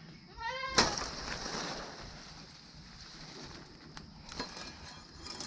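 A machete chops through a salak palm stem with one sharp hit about a second in, followed by the rustle of the spiny fronds as the cut stem shifts, and a few lighter knocks later on.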